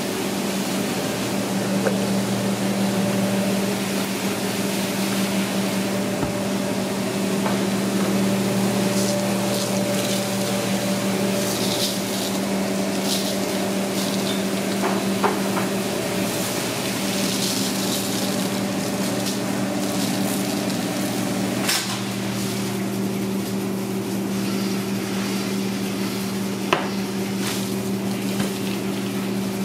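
Steady hum of kitchen machinery, such as a ventilation hood or refrigeration, with several held tones. Over it come scattered light clicks and short rustling and rubbing sounds from gloved hands handling and seasoning raw rib roasts.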